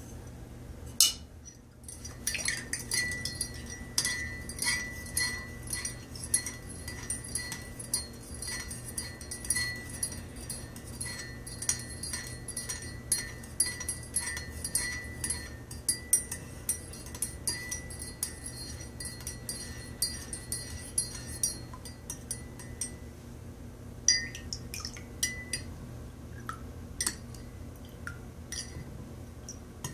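Metal teaspoon stirring sugar into coffee in a ceramic mug, clinking rapidly against the inside of the mug with a steady ringing tone. The stirring stops after about twenty seconds, followed by a few separate clinks of the spoon.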